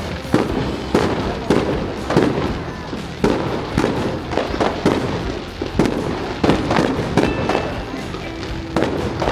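Aerial fireworks going off in quick succession: a sharp bang about every half second to second over a continuous low rumble.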